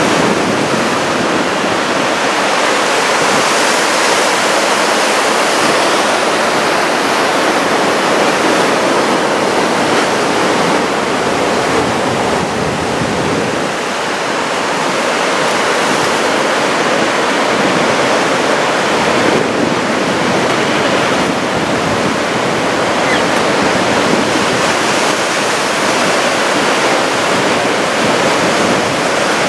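Heavy ocean surf from a large typhoon swell, breaking waves merging into a steady, loud wash of white noise.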